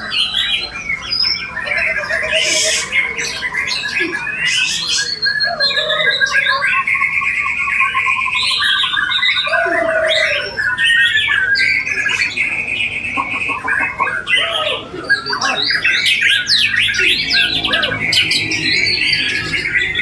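Dense chorus of many caged songbirds singing over one another at a songbird contest, mostly white-rumped shamas, with loud whistles, trills and harsh squawks overlapping without a break.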